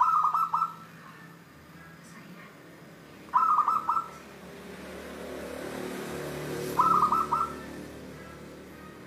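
Zebra dove (perkutut) cooing: three short phrases of quick, clear coo notes, each under a second long, repeated about every three and a half seconds.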